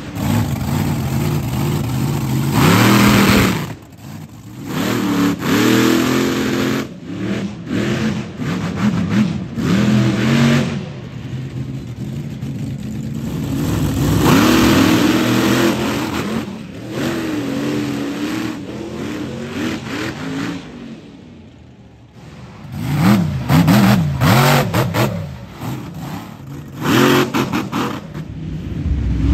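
Monster truck engines revving hard in repeated bursts, the pitch climbing and dropping as the trucks accelerate, wheelie and race. The engine sound drops away briefly about four seconds in and again a little past twenty seconds.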